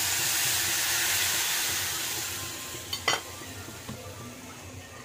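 Water poured into hot ghee and roasted semolina (suji) in a kadai, sizzling and hissing hard, then dying away over about three seconds. A short sharp knock sounds just after the hiss fades.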